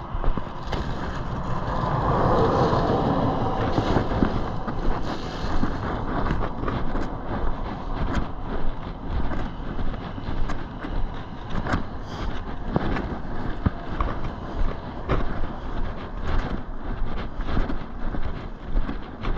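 A vehicle going past on the road, swelling and fading between about two and five seconds in, over a steady rumble with wind on the microphone. After that come regular soft knocks, about one and a half a second, fitting footsteps along the roadside.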